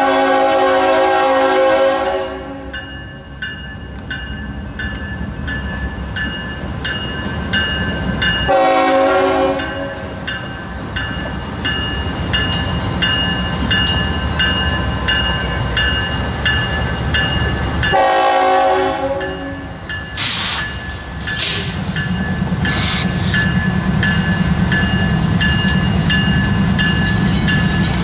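Union Pacific diesel locomotive sounding its multi-chime air horn: a long blast fading out about two seconds in, then two shorter blasts about nine seconds apart, over the low rumble of the engine and train. A grade-crossing bell rings steadily underneath, and the engine rumble grows louder near the end as the locomotives pass.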